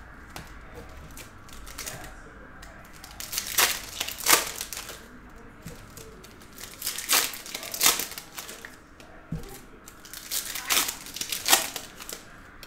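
Chrome trading cards and their foil packs being handled: short, sharp crinkling and rustling in three clusters as the cards are flipped through and stacked.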